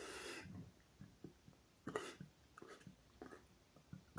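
Near silence: a soft, short hiss at the very start, then a few faint scattered clicks.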